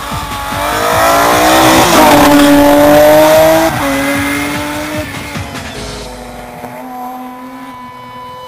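Rally car passing flat out: the engine climbs in pitch and loudness as it approaches, drops in pitch as it goes by about two seconds in, then steps down twice and fades as it pulls away.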